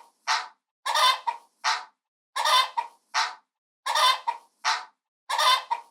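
Rooster giving short, repeated calls in pairs, a longer call followed by a shorter one, about every one and a half seconds.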